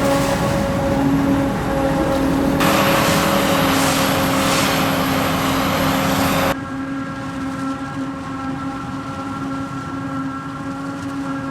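Farm machinery engines at the maize harvest running with a steady droning hum. A loud rushing noise joins the hum a few seconds in and stops abruptly about halfway through, leaving the engine hum quieter.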